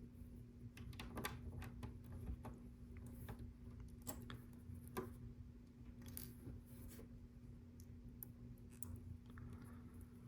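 Faint, scattered clicks of small plastic LEGO pieces being handled and pressed into place, over a steady low hum.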